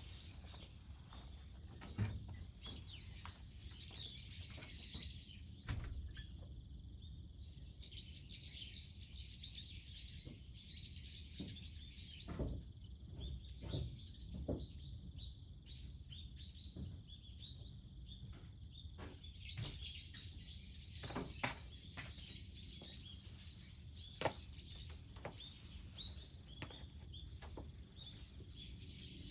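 Small birds chirping and twittering in bursts that come and go, over a low steady rumble, with a handful of sharp knocks scattered through.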